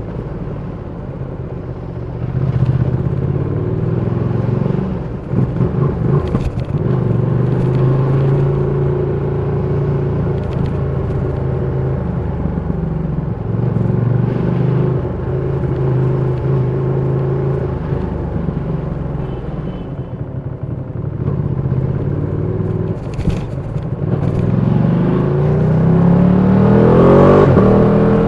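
Ducati Panigale V2's 955 cc Superquadro twin engine running at low, steady revs with small changes in throttle, then revving up in a rising pitch as it accelerates near the end.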